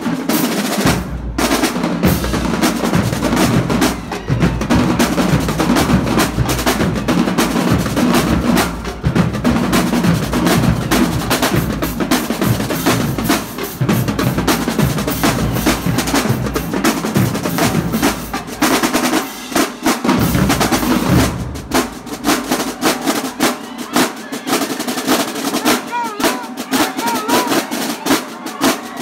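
Drumline playing: marching snare drums in fast rolls and patterns over bass drums. About 21 seconds in the bass drums drop out and the snares carry on.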